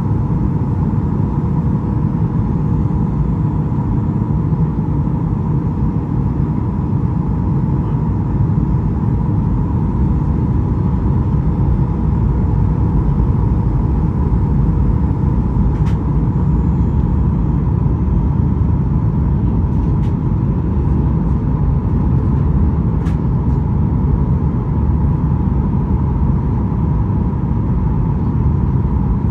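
Cabin noise inside a Boeing 737-8 MAX on final approach: a steady deep rumble of airflow and the CFM LEAP-1B engines at approach power, with a steady high hum running through it. A few faint clicks come in about two-thirds of the way in.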